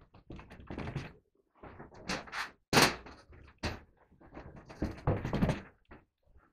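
Hands working a sheet of fiberglass wallcovering onto a drywall window reveal: a run of irregular knocks and thumps with noisy scuffing between them, the loudest a sharp knock a little under three seconds in.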